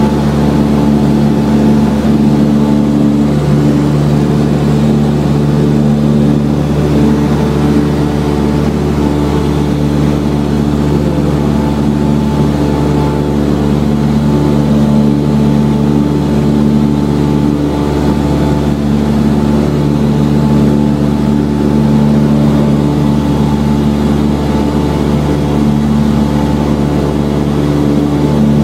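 The Cessna 172R's four-cylinder Lycoming engine and propeller droning steadily in flight, heard from inside the cabin.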